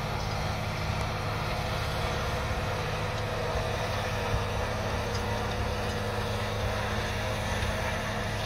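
Case IH Steiger 350 four-wheel-drive tractor's diesel engine running steadily under load as it pulls a tillage implement through the field, a continuous low hum.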